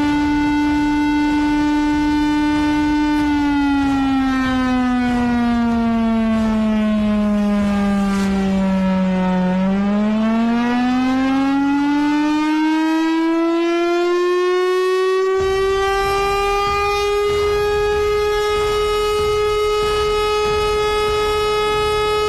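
Air-raid warning siren sounding the red alert. It holds one steady tone, slowly falls in pitch for about six seconds, then slowly climbs back to a higher pitch than it began and levels off there.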